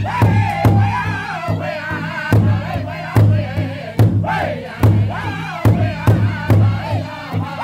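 Powwow drum group playing an intertribal song: several men strike one large hide drum together in a steady beat while singing a high, wavering chorus.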